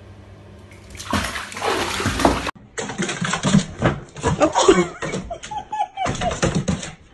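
Water splashing in a bathtub as a kitten drops in, starting about a second in and cutting off sharply a second and a half later. Then voices and laughter follow.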